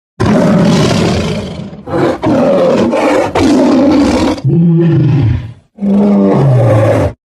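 Tiger roaring and growling in a run of about five loud, rough roars with short breaks between them. The last two roars slide down in pitch.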